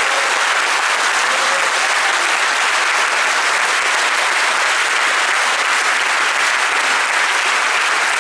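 Audience applauding steadily, a dense, even clapping with no pauses.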